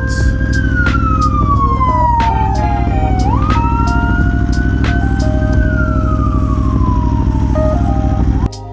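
Ambulance siren wailing: a tone that rises, holds, then slides slowly down, twice over. Underneath is the steady low running of an Aprilia Tuono V4 motorcycle engine. Both cut off abruptly near the end.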